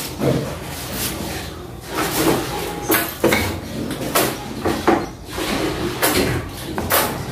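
Wooden spatula scraping and knocking against the inside of a serving bowl as the soup is stirred: a run of irregular short scrapes and taps.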